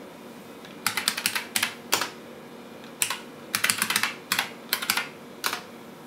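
Keys clicking on a computer keyboard, in a few quick bursts and single strokes, as a login name is typed in at a dial-up login prompt.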